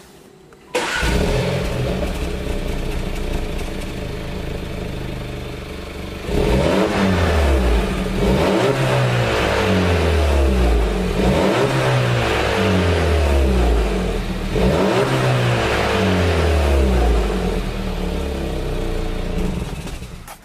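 VW Golf 1.4 TSI turbocharged four-cylinder petrol engine heard at the twin tailpipes of an exhaust with its resonators deleted. It starts up about a second in and idles. From about six seconds in it is revved repeatedly, each rev rising and falling in pitch.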